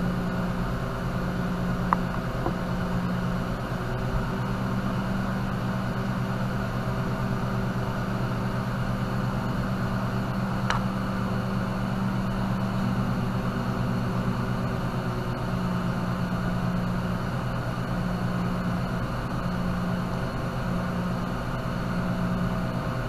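Steady electric motor hum with a fan-like hiss, and a couple of faint clicks.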